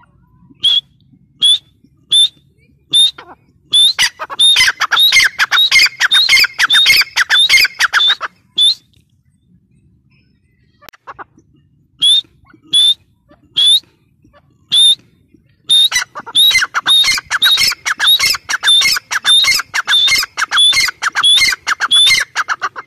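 Grey francolin calling: a few spaced single notes, each sweeping sharply upward, build into a fast run of loud repeated notes lasting several seconds. After a pause the whole pattern comes again, with the fast run going on longer.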